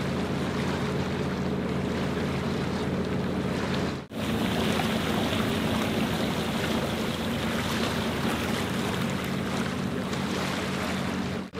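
Sailboat's inboard engine running steadily under way, a low drone with wind and water rushing over it. The sound drops out for an instant about four seconds in.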